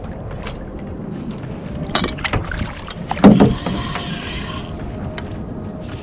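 Water slapping against the kayak's hull, with the clicks and knocks of the rod and reel as a school mackerel is wound in. The loudest knock comes about three seconds in, followed by a hiss for about a second and a half.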